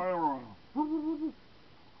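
A beagle and a man howling together, their howls sliding down in pitch and fading out by about half a second in. One short, steady hooting howl follows about a second in.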